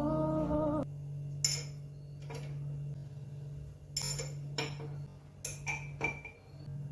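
Ceramic mugs clinking against the metal hooks and rail they are being hung on: about seven sharp clinks, some ringing briefly, over a steady low hum.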